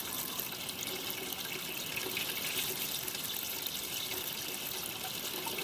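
A steady stream of water pouring onto a ThruNite Ti5 penlight's metal body and splashing off it onto stone, as a water-resistance test.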